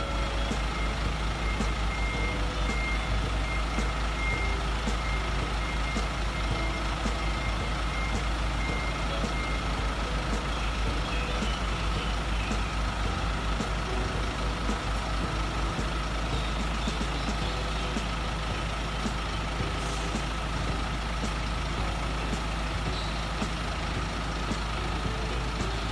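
Hino XZU720R tipper truck's 4-litre N04C turbo diesel running steadily while its hydraulics raise the tipper body, with a steady whine over the engine. A repeated electronic warning beep sounds for about the first ten seconds, then stops.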